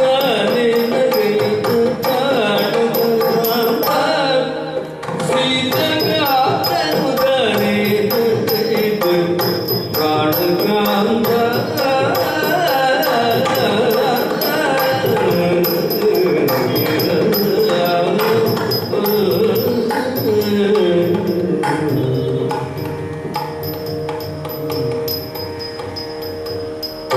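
Yakshagana bhagavata's male voice singing a slow, gliding song line, accompanied by strokes on a maddale, the double-headed barrel drum. The voice is less prominent in the last few seconds, while the drum continues.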